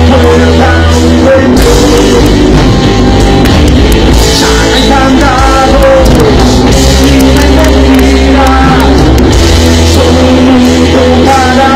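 Rock band playing live: drum kit, bass and guitars, with a singer's voice over them, loud.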